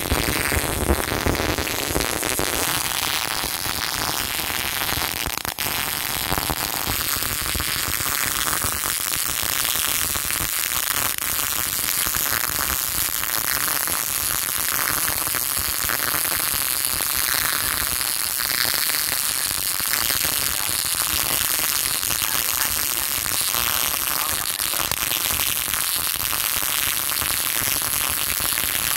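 Jasic NB-270D MIG welder's arc running steadily through a 2F fillet weld on steel plate, a continuous crackling hiss.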